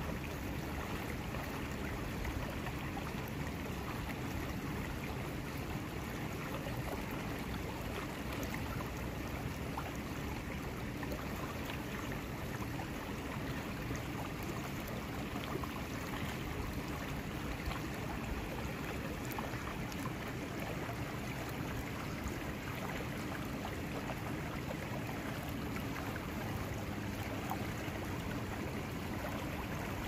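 River water running steadily over a shallow riffle, a continuous even rush of flowing water.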